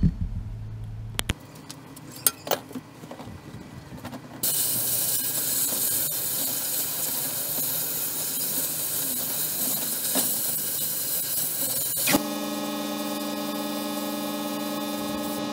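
A few sharp clicks, then a loud, steady hiss from a compressed-air sandblast on the mud-corroded alternator parts. It starts suddenly about four seconds in and cuts off abruptly after about eight seconds, giving way to a steady, pitched motor hum.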